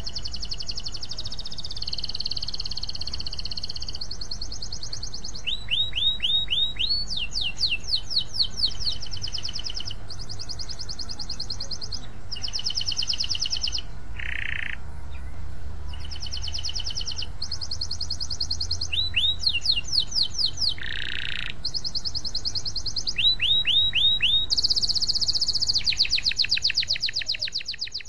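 Domestic canary singing a long, unbroken song of fast trills and rolls, switching from one rapidly repeated high phrase to the next, with runs of quick downward-sweeping notes now and then. The song fades out at the very end.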